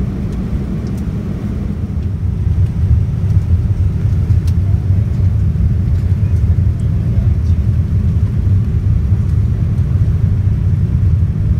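Steady low rumble of a Boeing 787-9 airliner's cabin in flight: engine and airflow noise, getting a little louder about two to three seconds in.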